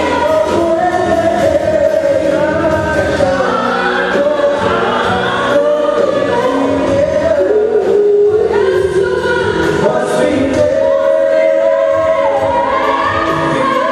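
Live band music with several voices singing together, holding long notes over the band.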